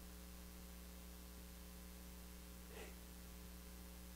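Near silence with a steady low electrical hum, and one faint brief sound about three seconds in.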